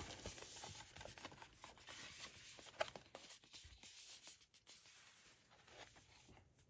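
Faint handling sounds of a cardboard fold-out disc digipak being opened out: light rustles and taps of card, with one slightly sharper tap about three seconds in.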